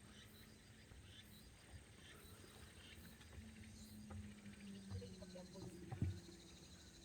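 Near silence: faint outdoor ambience with a steady low hum and a single soft knock about six seconds in.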